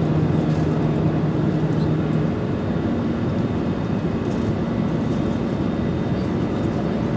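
Airliner cabin noise in flight: a steady engine and airflow roar. A low engine tone in it drops out about two seconds in, and a slightly higher tone takes over about a second later.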